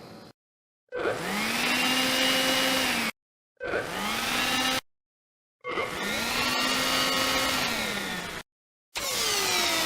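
Recorded vacuum cleaner motor played as short edited clips: three times it starts with a click, whines up to a steady pitch and is cut off into silence. Near the end comes a processed version with many tones sweeping up and down across each other, a sci-fi effect made from the motor sound.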